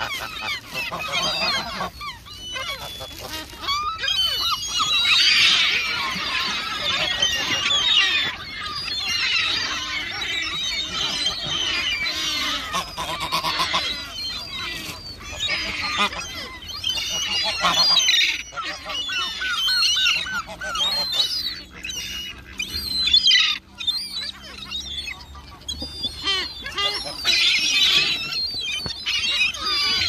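A mixed flock of gulls and greylag geese calling continuously, many short overlapping calls.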